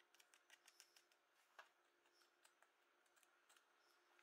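Near silence, with faint scattered clicks and ticks of a metal spoon against a small glass dish.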